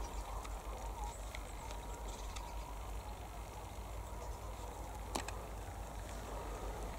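Steady low rumble of wind and handling noise on a moving handheld camera's microphone, with a few faint clicks and a single knock about five seconds in.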